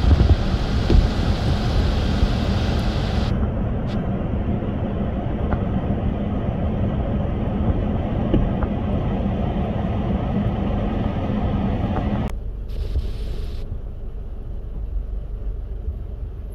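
Steady low background rumble and hiss of an outdoor recording, with no distinct event in it; it drops suddenly in level about twelve seconds in.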